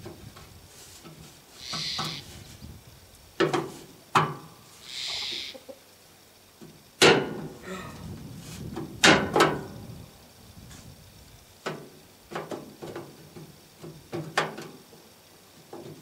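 Irregular clicks and knocks of a billet aluminum turn signal bezel being pushed and worked against the front parking light housing of a 1959 GMC 100 pickup, with the loudest knocks near the middle and two short hissing bursts early on. The bezel's tabs are not catching, so it does not snap into place.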